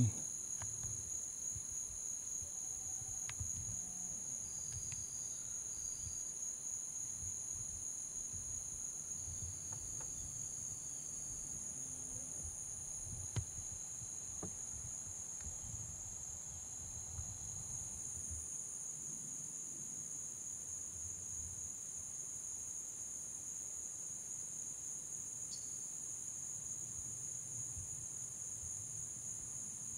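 Chorus of singing insects: a steady, high-pitched drone. One sharp click about halfway through.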